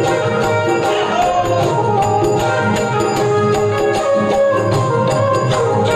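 Live Rajasthani devotional bhajan music with no singing: an electronic keyboard melody over a steady percussion beat with jingling.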